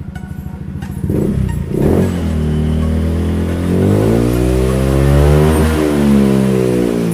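Fuel-injected Honda scooter engine revved hard on its stand with the rear wheel spinning free, for a top-speed check on the stock CVT pulley. After two quick blips about a second in, the throttle is held open and the pitch climbs steadily, dips briefly near six seconds, then holds high.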